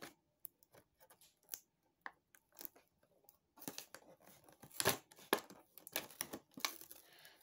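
Cardboard and plastic toy packaging of a Nerf blaster being handled and torn open by hand: scattered rustles, crinkles and small clicks, sparse at first and busier from about halfway through.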